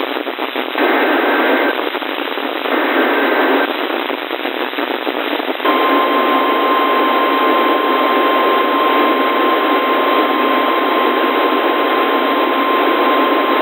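Emergency Alert System data bursts received over the radio: two short bursts about a second long in the first few seconds. About two seconds later comes a single steady tone a little above 1 kHz, the NOAA Weather Radio 1050 Hz attention tone that opens an alert, held for the rest. Everything sits over constant radio static and sounds thin.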